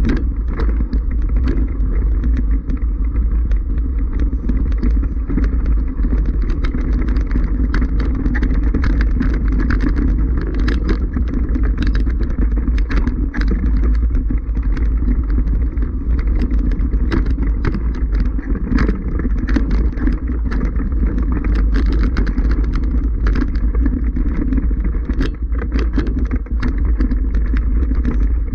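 Mountain bike rolling over a loose rocky scree trail, heard from an action camera: a steady wind rumble on the microphone with frequent short clicks and rattles as the bike jolts over the stones.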